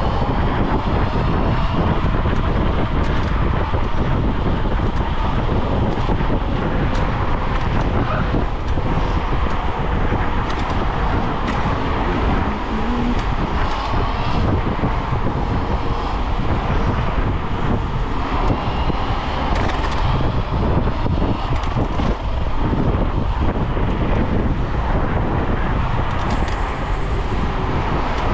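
Steady rush of wind and road noise while riding an electric scooter along a street in traffic, a constant low rumble with no breaks.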